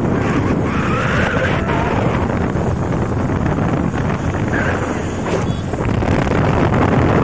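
Steady wind noise buffeting a phone's microphone from riding on a moving scooter, with the scooter's road noise underneath.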